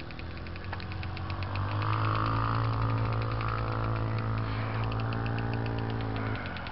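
Motorcycle engine running at a steady, unchanging speed. It grows louder about a second and a half in and drops off sharply near the end.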